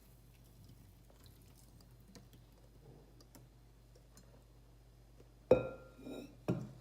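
Kitchenware clanking: faint scattered clicks, then one loud hard knock with a short ring about five and a half seconds in, and a second smaller knock about a second later, as the failed batter is handled for discarding.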